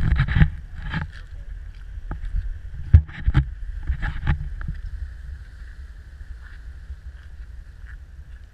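Footfalls and jolts of a body-worn camera on a rocky, scrubby trail, with wind rumbling on the microphone. Several thumps come in the first half, then it settles to the steady rumble and a thin, steady high hum.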